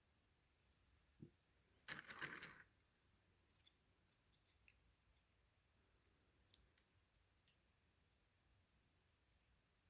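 Near silence with a brief faint rustle about two seconds in and a few light clicks scattered after it: resin model parts being handled.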